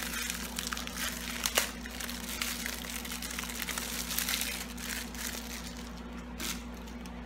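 Packaging crinkling in a run of short, irregular rustles as it is handled and opened, over a steady low hum.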